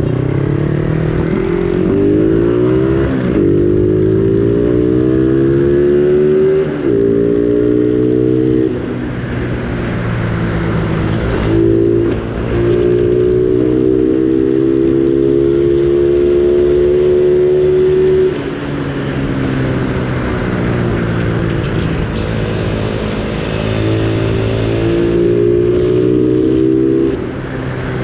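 Yamaha Sniper 135's single-cylinder four-stroke engine revved through an aftermarket Replica Pro standard-type exhaust pipe: the pitch climbs and drops in repeated blips, with one longer hold at higher revs in the middle.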